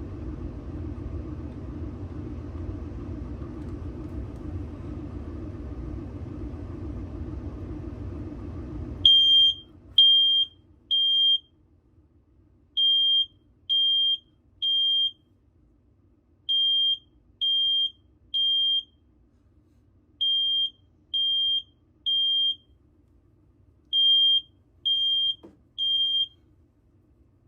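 A steady rushing noise runs for about nine seconds and cuts off abruptly. Then a smoke alarm sounds its high-pitched temporal-three evacuation pattern, set off by smoke from burning cardboard: three short beeps, a pause, repeated five times.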